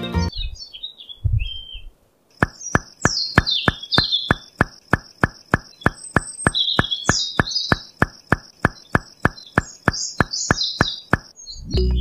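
Birds chirping, joined about two seconds in by a steady run of sharp, evenly spaced clicks, about three a second, which stop shortly before the end.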